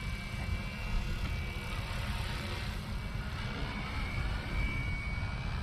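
FlyWing FW450 electric RC helicopter in flight some way off: a steady, faint high-pitched motor and rotor whine over a low rumble of wind on the microphone.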